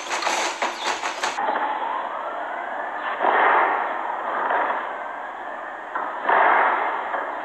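Hydraulic humanoid robot (Boston Dynamics Atlas) jumping between boxes. Before about a second and a half there are rapid sharp knocks; after that come a rising mechanical whine and two loud hissing bursts, about three and six seconds in.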